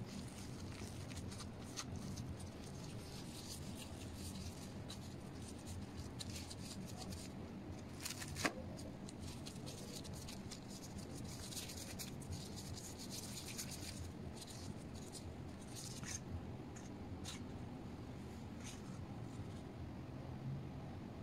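Faint kitchen handling sounds: plastic food gloves rustling and small utensil clicks, over a steady low hum. One sharper click comes about eight and a half seconds in.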